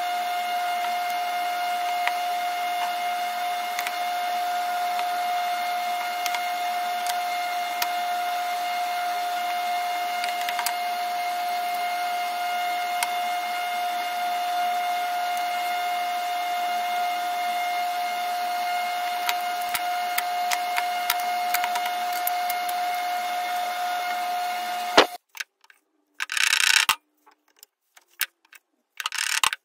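A machine motor in a woodworking shop running with a steady whine at one pitch, under light wooden clicks and knocks as pine boards are set down and shifted on a saw table. The whine cuts off suddenly near the end, and a few short bursts of noise follow.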